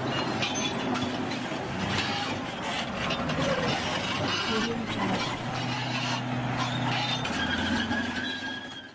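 Bulldozer's diesel engine running steadily under metallic clanking, with some high squeaks over it, fading out near the end.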